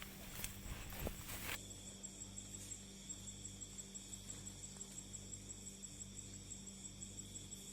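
Faint, steady chirring of night insects over a low hum. The first second and a half also holds rustling and a few light knocks, which then stop suddenly.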